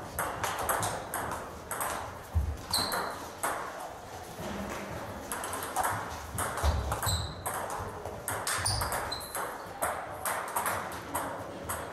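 Table tennis balls clicking off bats and tables in quick rallies on more than one table at once, several irregular clicks a second, some with a short ring. A few dull low thumps come in among them.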